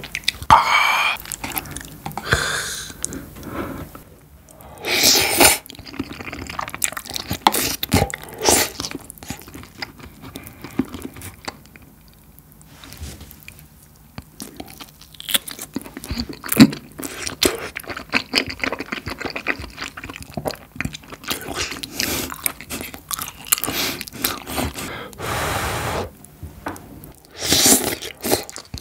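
Close-miked eating of beef gopchang (intestine) and tteokbokki in spicy sauce: wet chewing, biting and clicking mouth sounds, with a few louder slurps as long pieces are sucked in, about five seconds in and again near the end.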